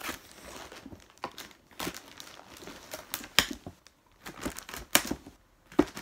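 Shoe packaging being opened by hand: crinkling, rustling and tearing, with several sharp snaps, the loudest about three and a half, five and six seconds in.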